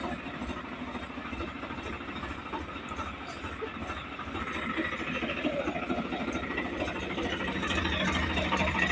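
Diesel tractor engine running, growing steadily louder from about four seconds in.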